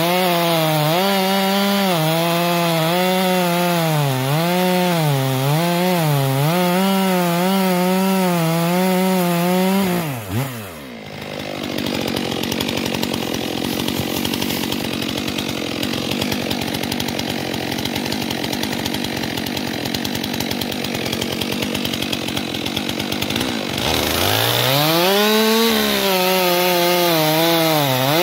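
Stihl MS 400 C two-stroke chainsaw at full throttle cutting through a log, its engine pitch wavering as the chain loads up in the wood. About ten seconds in the throttle is released and the saw drops to idle. Near the end it revs back up and bites into the log again.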